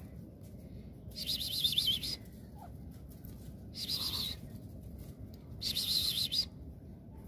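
A songbird singing three short warbling phrases, each about a second long or less, over a low steady background noise.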